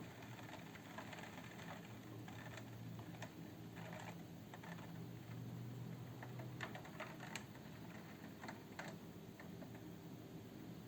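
Raindrops tapping irregularly on a window pane, heard from inside the room, with a low steady hum beneath.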